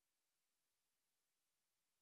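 Near silence: only a very faint, even hiss.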